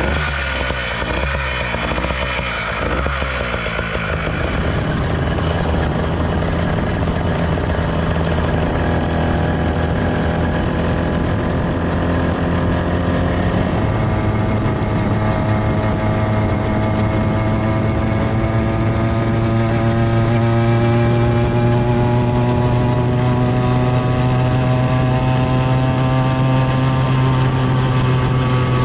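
Two-stroke motorized-bicycle engine running while the bike is ridden. It is uneven and pulsing for the first few seconds, then settles into a steady buzz whose pitch climbs slowly as the bike gathers speed. The owner calls it out of tune, with an air leak making it lean at low throttle and too large a jet making it rich at high throttle.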